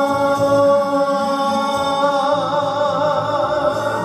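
A singer holding one long note over backing music, with vibrato coming into the note about halfway through.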